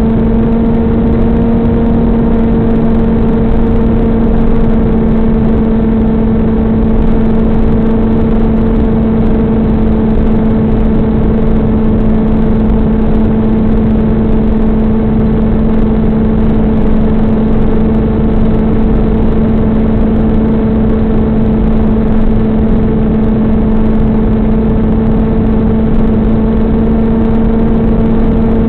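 Stratosurfer RC plane's electric motor and propeller running at steady cruise throttle: a constant buzzing drone over wind rush, heard through the onboard FPV camera's microphone.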